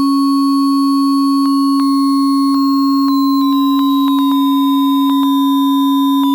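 Computer-synthesized Weierstrass function: a strong steady low tone with fainter tones a few octaves above it that slowly glide downward in pitch. From about a second and a half in, clicks break in, coming more often toward the end.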